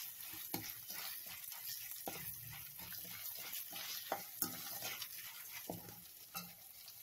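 Tempering spices (mustard seeds, lentils, dried red chillies and curry leaves) sizzling in hot oil in a stainless-steel kadai as they fry golden. A slotted steel spatula stirs them, scraping and clicking against the pan now and then.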